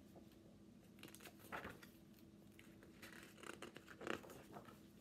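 Faint rustling and scraping of a hardcover picture book being handled and its cover opened, a few short rubs of paper and card.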